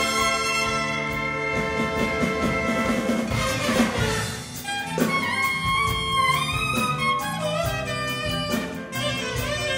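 Big band playing jazz live: horn section chords over piano, bass and drums. About five seconds in, a single melody line with slides and bends comes out on top of the band.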